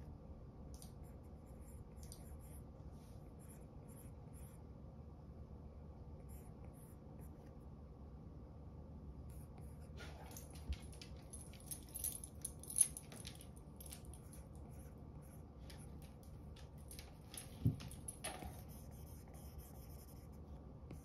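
Apple Pencil tip stroking and tapping on an iPad's glass screen while drawing: faint short scratchy strokes, sparse at first and busier in the second half, with two louder sharp taps. A low steady hum runs underneath.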